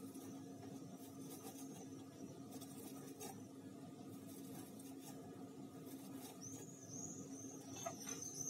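Sausage being grated on a metal box grater: soft, irregular rasping strokes over a steady low hum. In the last two seconds comes a run of high, repeated chirp-like squeaks, about two a second.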